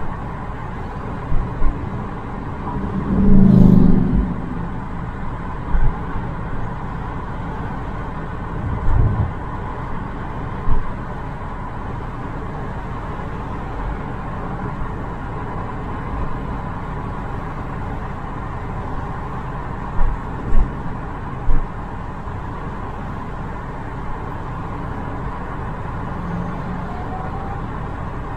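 Steady road and engine noise of a car driving on a suburban road. Several short low thumps break through it, the loudest a longer rumble about three to four seconds in and a cluster of three about twenty seconds in.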